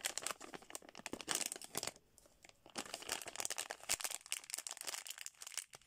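Plastic Hot Wheels blind bag being torn open and crinkled by hand: irregular crackling, with a short lull about two seconds in.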